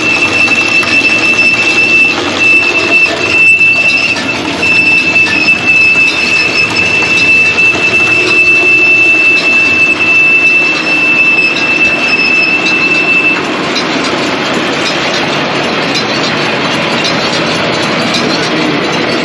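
John Deere 459 round baler running, with a steady high-pitched squeal over the machine noise. The squeal cuts out about two-thirds of the way through while the baler keeps running. It is an abnormal noise that the owner traces to one part he plans to replace.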